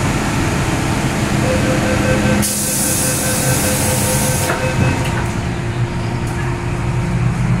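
MTR M-Train standing at a station platform: a repeated electronic beeping, then a burst of air hiss for about two seconds, over the train's steady low rumble. A steady low tone comes in after the hiss.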